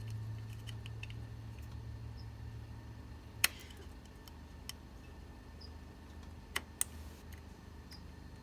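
A few sharp metallic clicks and taps of hand tools working on a battery terminal, the loudest about three and a half seconds in and two more in quick succession near the end. A low steady hum cuts off at the loudest click.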